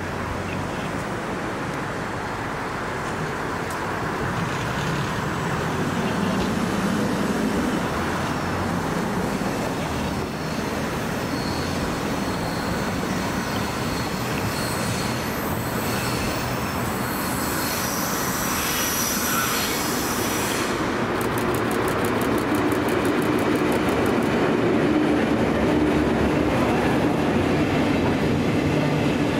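Diesel-hauled container freight train approaching and passing: a steady rumble building in the last third as the wagons roll by, with high wheel squeal in the middle.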